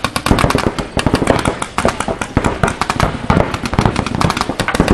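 Paintball markers firing in rapid, overlapping strings of shots, many pops a second.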